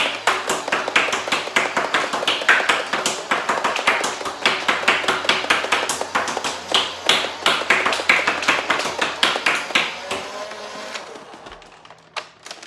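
Nerf HyperFire flywheel blaster firing full-auto: a rapid, even stream of dart shots over the steady whirr of its spinning flywheel motors. The firing tails off about eleven seconds in as the 50-dart drum runs empty, leaving a few scattered clicks.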